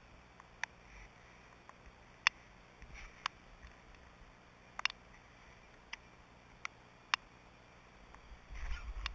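Scattered sharp clicks, irregularly spaced about a second apart, over a faint hiss; a low rumble comes in near the end.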